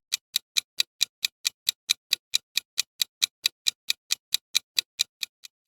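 Quiz countdown timer sound effect: a clock ticking fast and evenly, about five ticks a second, stopping shortly before the end.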